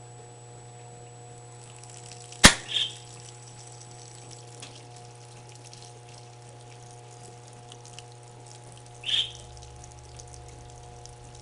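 Electrolux washing machine filling: a steady electrical hum with water running into the drum. A sharp click about two and a half seconds in, and a couple of short high chirps.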